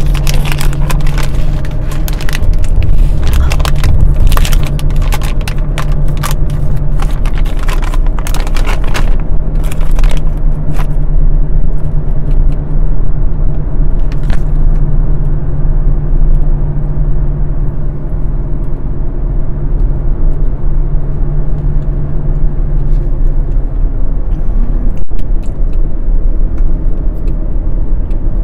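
A motor vehicle's engine running steadily with a low hum, with rattling and clicking over the first ten seconds or so.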